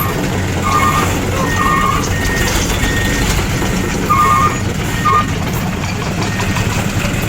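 Heavy-machinery engines running with a steady low rumble, overlaid by short intermittent back-up alarm beeps at two different pitches.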